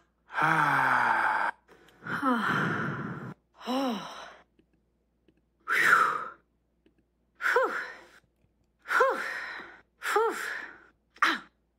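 A string of about eight short recorded human sighs and breathy exhalations, one after another with short pauses between, most with a quick rise and fall in pitch. They are nonverbal vocal bursts expressing relief and tiredness.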